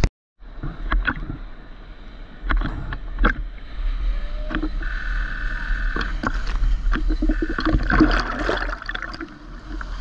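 Sea water sloshing and splashing against a GoPro in a waterproof housing held at the surface, with a low rumble of surf and many short splash clicks. The sound drops out for a moment at the very start, and it is loudest about eight seconds in.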